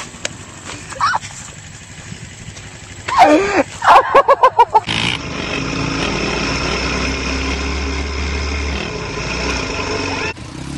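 A person's loud shout breaking into quick bursts of laughter, then a quad's engine running steadily at high revs as the ATV holds a wheelie on sand.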